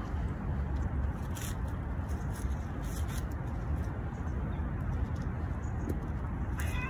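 Steady low background rumble with a few faint ticks. Near the end a tomcat starts a long, drawn-out yowl, the warning call of a male squaring up to a rival male.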